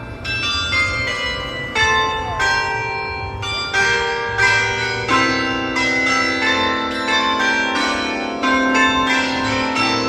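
Clock carillon: a row of bells hung beneath a tower clock, struck in turn to play a tune, each note ringing on under the next at about two notes a second.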